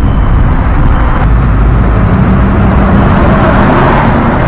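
Large truck passing close by in a road tunnel: a loud, steady roar of engine and tyres, with the engine's hum coming through about halfway through.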